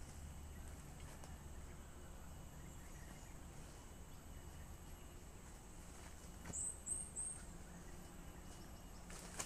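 Outdoor woodland ambience: a faint steady high insect drone, with a bird giving three quick, high, rising chirps about two-thirds of the way through and a single click near the end.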